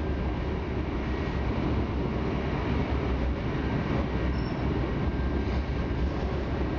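Tatra KT4 tram running along the track, heard from inside the car: a steady low rumble of wheels on rails and running gear.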